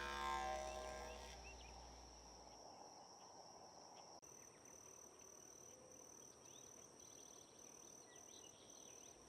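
Music fading out over the first couple of seconds, then faint outdoor ambience: a steady high insect drone with scattered short bird chirps.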